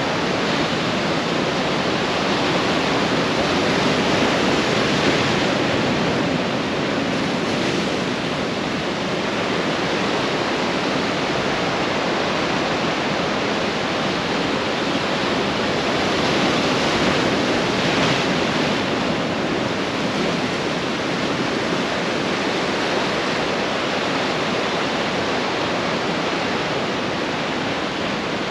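Ocean surf washing steadily onto the shore, an unbroken rushing noise that swells slightly a couple of times.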